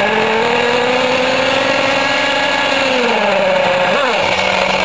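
Nitro engine of a Losi 8ight 2.0 1/8-scale buggy spun up on an electric starter box and running, a steady whine that sags about three seconds in, then a quick dip and rise near four seconds in.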